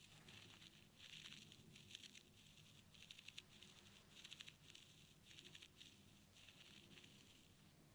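Faint, close-miked ear-cleaning sounds: short bursts of scratchy, crackly rustling, roughly one a second, as a tool or fingers work in and around the ear.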